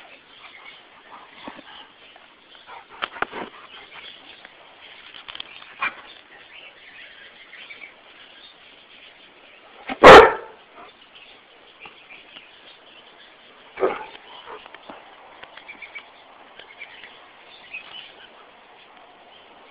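A dog barks once, loudly, about halfway through, with a few shorter, quieter sounds before and after it.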